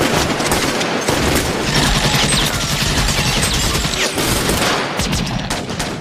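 Shootout gunfire from several guns: rapid shots overlapping into a continuous volley.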